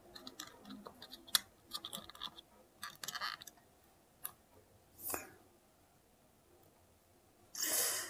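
Scattered light clicks and taps of small plastic parts being handled inside an opened hair dryer's housing, the loudest about a second and a half in, stopping after about five seconds.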